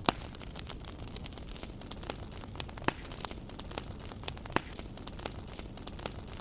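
Wood campfire crackling: irregular sharp pops and snaps, three of them louder than the rest, over a steady low background noise.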